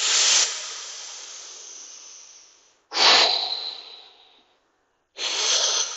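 A man's deep, forceful exhalations, three of them, each a loud rush of air that trails off over a second or two, as he breathes through a held hip stretch in a side plank.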